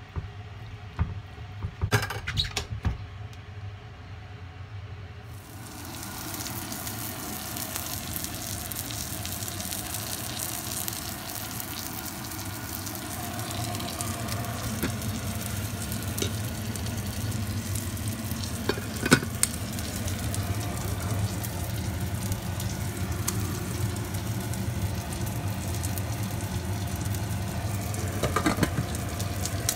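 Food sizzling as it cooks: a steady hiss that sets in about five seconds in and holds. A few knocks of handling come about two seconds in, and a single sharp click about nineteen seconds in.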